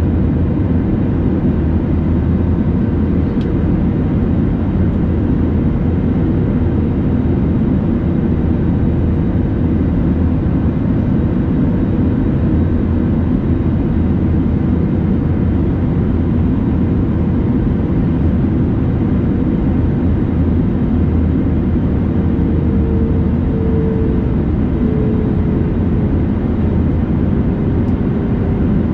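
Steady cabin noise of an Airbus A320neo in flight: a constant low rumble of engines and airflow, with a faint tone that dips slightly in pitch near the end.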